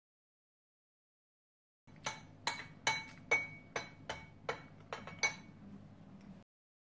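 A metal spoon clinking against a ceramic ramen bowl about ten times in quick succession, each clink ringing briefly. The first two seconds are dead silent, and the clinks stop a little after five seconds in.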